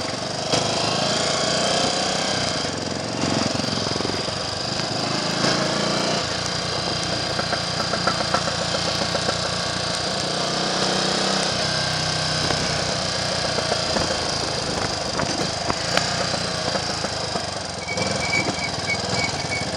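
Triumph Trials Cub's single-cylinder four-stroke engine running under way with a rapid, even beat, under a steady rush of wind noise on the handlebar-mounted microphone.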